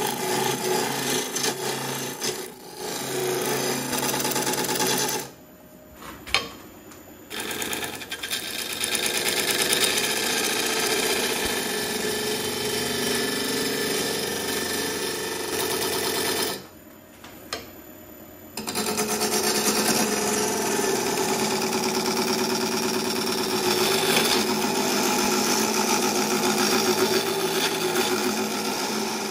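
Gouge cutting into a hawthorn burl blank cast in epoxy resin as it spins on a wood lathe: a continuous loud cutting noise over the lathe's steady hum. The cut breaks off twice for about two seconds, about five seconds in and again just past halfway, leaving only the lathe running.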